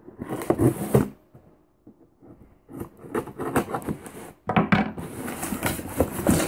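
A cardboard subscription box being opened and its contents handled: a burst of rustling and scraping, a short pause, then steady rustling and crinkling of packaging from about halfway in, with a sharp knock where it picks up.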